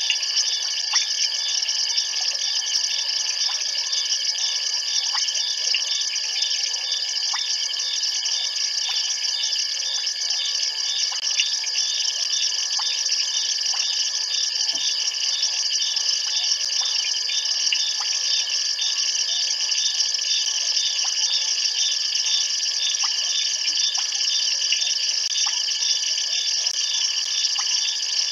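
Dense night chorus of frogs and insects at a waterhole: a steady high trilling with one held high tone through it, a call repeating about twice a second, and scattered faint clicks.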